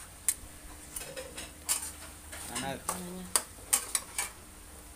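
Metal spatula stirring snails in their shells in a steel wok, giving about eight sharp, irregular clanks and scrapes against the pan, with the food sizzling quietly underneath.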